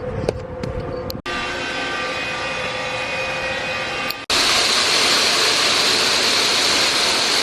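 Machinery running in short cut-together stretches: first a steady machine hum with several whining tones, then, after a sudden cut, the louder steady rushing hiss of a grain vacuum sucking shelled corn out of a jammed elevator leg.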